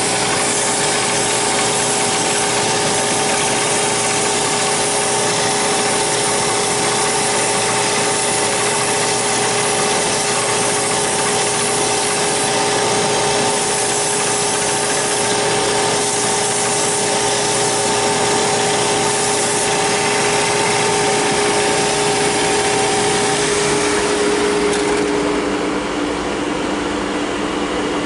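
Rikon narrow belt sander running with a 180-grit belt, a steady motor hum under the rasp of a carved wooden bird's head being shaped against the belt. Near the end the sanding sound drops away, leaving a lower hum.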